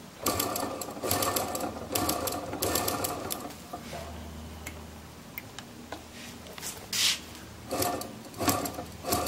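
Splitdorf magneto being spun by hand on a test bench in quick whirring bursts with sharp clicks, switched to magneto ignition on full retard. Two bursts come in the first three seconds or so, and more near the end.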